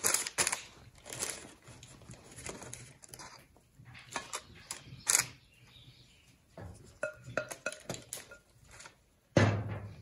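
Wooden spoon spreading chopped rhubarb filling in a cast-iron Dutch oven: irregular light knocks, scrapes and a few brief clinks against the pot, with a louder knock near the end.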